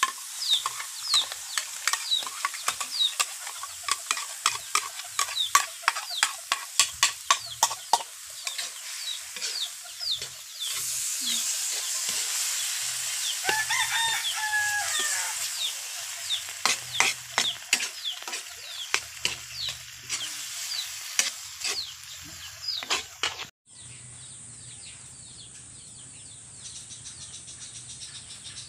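Metal ladle scraping and clinking against a steel wok as a sizzling mix of meat, corn and ketchup is stirred, with many sharp clicks. A rooster crows about halfway through. Near the end the sound drops to a quieter steady sizzle of the simmering sauce.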